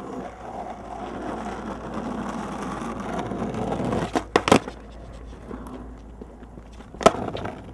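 Skateboard wheels rolling on asphalt, growing louder as the board approaches. About four seconds in come a few sharp clacks of the board hitting the curb, then a quieter roll and one more sharp clack near the end.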